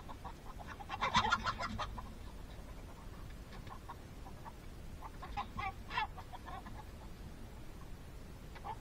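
Chicken clucking in short runs of quick clucks. The loudest run comes about a second in and another a little after five seconds in.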